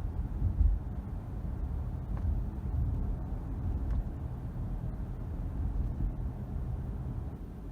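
Road and cabin rumble inside a Mercedes-Benz W222 S-Class driving over uneven road, with a few faint, light knocks from the interior trim, about two and four seconds in. The knocks come on bumps and are the rattle the owner is tracking down.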